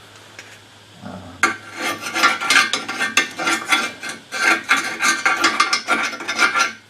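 Rapid, irregular scraping and rubbing in quick strokes, starting about a second and a half in and stopping near the end: a collapsed nylethane spring pad, crumbled to granules, being scraped out of a coil-spring seat.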